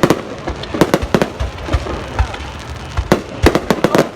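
Fireworks going off: many sharp bangs in irregular, overlapping clusters, several a second at times, over a continuous rumble of more distant bursts.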